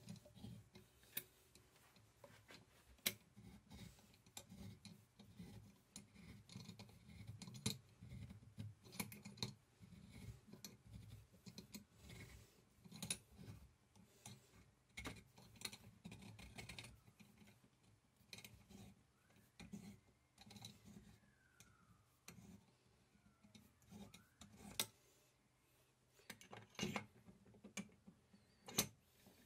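Adjustable reamer turned by hand with a tap wrench in a hole in the 1884 Singer sewing machine's arm: quiet, irregular metal clicks and scraping, with a faint squeak or two a little past the middle. A few louder clicks near the end as a part is fitted by hand.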